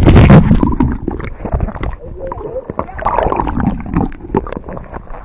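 Seawater splashing over a camera held at the surface, with a loud splash at the start, then gurgling and sloshing as the lens dips in and out of the water.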